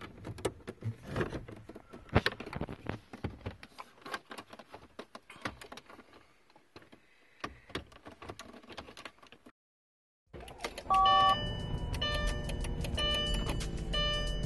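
Sharp plastic clicks and knocks as wiring connectors are plugged into the back of a Mercedes W220 instrument cluster and the cluster is pressed into its dash opening. After a brief silent cut about ten seconds in, a louder steady low hum comes in under a pattern of short repeating tones.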